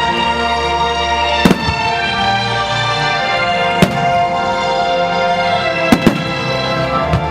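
Aerial firework shells bursting in sharp bangs over music: one about a second and a half in, another near four seconds, and two in quick succession around six seconds.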